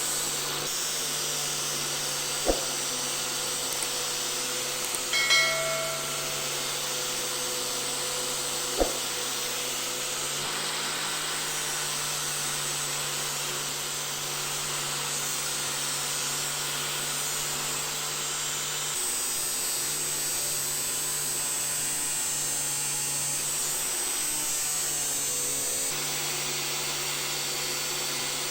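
Electric grinder running steadily as it grinds the steel head of an old cobbler's hammer, shaping its contour. Two sharp knocks and a brief ringing squeal come in the first ten seconds.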